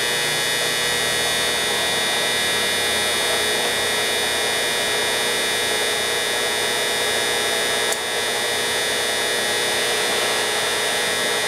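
Giddings & Lewis 2.5-inch horizontal boring mill running under its electric motor, a steady hum and whine as the boring bar turns for a trial pass. A single click about eight seconds in.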